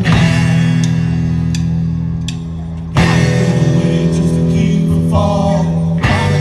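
Live blues band playing: acoustic and electric guitars over a drum kit, with a new chord struck at the start and again about three seconds in.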